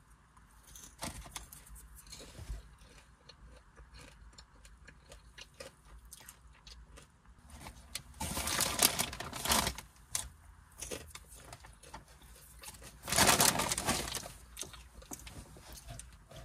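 A bag of maple sweet popcorn being handled and eaten: scattered small crackles, with two loud crinkling, crunching bursts of about a second and a half each, one a little past halfway and one near the end.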